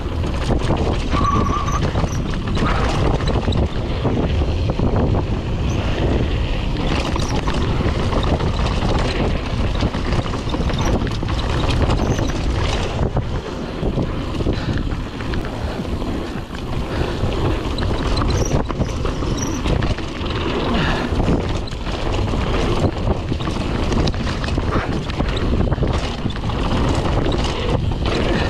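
Wind on a GoPro Hero 8's microphone over the rumble of a YT Capra mountain bike riding fast down a rough dirt trail. The bike rattles and knocks constantly as it goes over the bumps.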